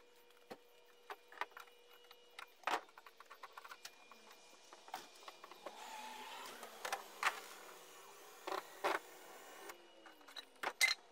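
Irregular clicks and knocks of hand work on a canoe's gunwale, with a cluster of louder knocks near the end.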